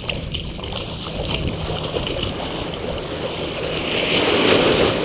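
Ocean surf washing up the beach, swelling louder near the end as a wave breaks and runs up the sand.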